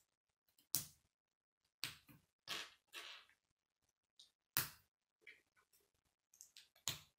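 Plastic K'nex pieces clicking as they are snapped together by hand: a few separate sharp clicks, with a short rattle of handled pieces around the third second.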